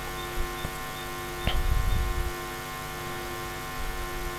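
Steady electrical mains hum with many fixed tones, picked up on the recording line. A brief soft knock comes about a second and a half in.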